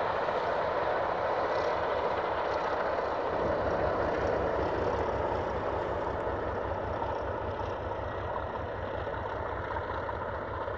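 Distant steam-hauled train of LMS Black 5 locomotive 44871 and its coaches drawing away. A steady rumble slowly fades, with a low steady engine hum underneath.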